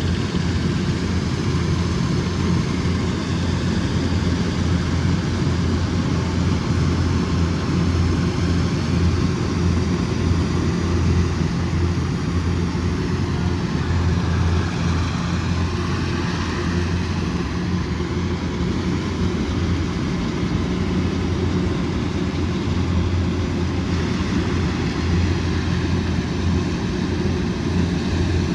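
Kubota combine harvester's diesel engine running steadily under load, with a constant low hum and the noise of the threshing machinery over it.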